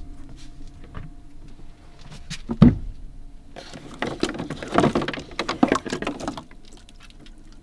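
Handling sounds inside a camper van: scattered clicks, a sharp thump about two and a half seconds in, then a few seconds of rustling and clattering, over a faint steady hum.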